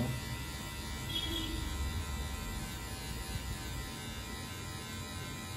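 Electric hair clipper running with a steady hum as it cuts and blends the short hair at the side of the head.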